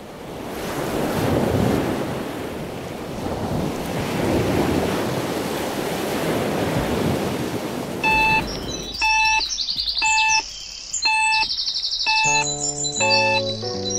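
Small waves washing onto a sandy beach, fading in and swelling twice in the first few seconds. About eight seconds in the surf gives way to music: evenly repeated bell-like notes with high chirping trills, joined near the end by low sustained chords.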